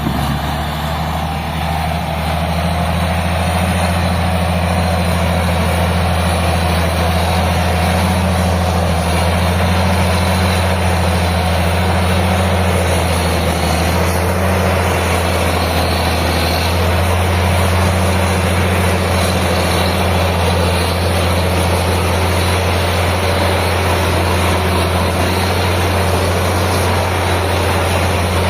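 Old Caterpillar D6 crawler tractor's diesel engine running at a steady speed, a loud, deep, even note that holds the same pitch throughout.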